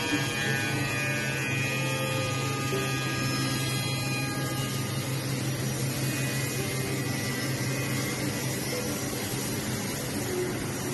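Multi-spindle CNC wood drilling, milling and mortising machine running: a steady electric motor hum with several high steady whining tones over it that fade out about halfway through.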